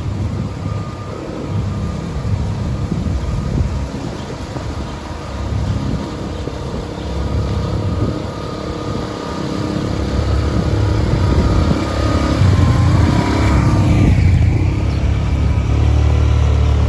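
A motor vehicle's engine running under way, growing louder about ten seconds in and settling into a steady low drone near the end.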